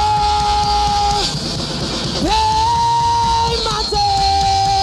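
Live rock band playing, with a singer holding long belted notes over distorted guitar and drums: three sustained notes, the first ending about a second in, the next held from about two seconds to nearly four, and a third near the end.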